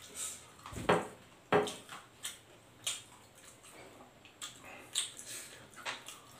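Close-up wet chewing and lip-smacking of a man eating fried chicken and rice with his hands: a string of short smacks and clicks, two louder ones in the first two seconds.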